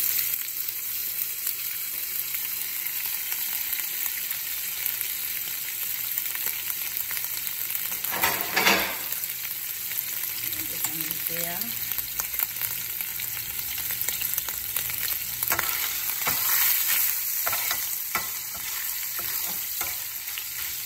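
Diced hot dog sizzling in hot oil in a nonstick frying pan: a steady frying hiss with a brief louder burst about eight seconds in. Near the end a utensil stirs the pieces, making scattered clicks and scrapes.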